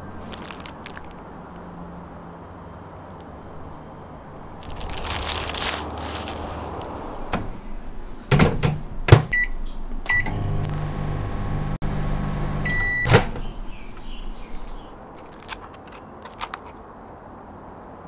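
A plastic rustle, then an LG microwave oven: its door shuts with a knock, its buttons beep twice, and it hums steadily while running for a few seconds. It ends with a longer beep and the door clicking open, followed by a few faint light taps.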